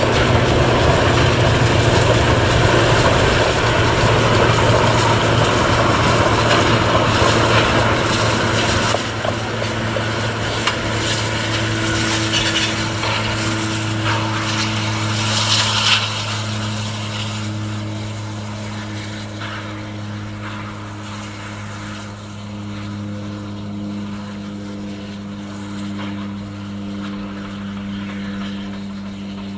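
A steam train, a Württemberg T3 tank locomotive with wooden-bodied coaches, running past on the track, its rumble and clatter loud at first and then fading as it draws away. A steady low engine hum continues underneath.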